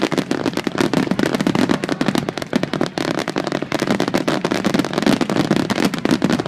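Aerial fireworks display going off in a dense barrage: many shell bursts and bangs a second, overlapping without a pause.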